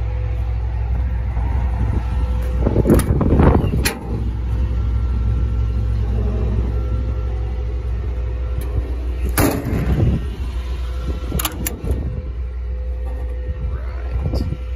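Steady low rumble of the 2008 Ford F-450's 6.8-litre V10 gasoline engine idling, with a few short knocks and clatters about three, nine and a half and eleven and a half seconds in.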